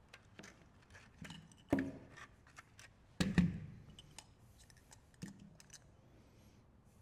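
Parts of a dismantled car climate control panel being handled and set down: scattered light clicks and taps, with two louder knocks, about two seconds in and again a second and a half later.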